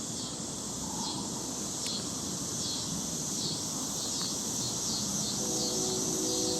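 Insects chirring in a steady, high-pitched chorus that swells in slow, even pulses. A faint hum of several steady tones joins near the end.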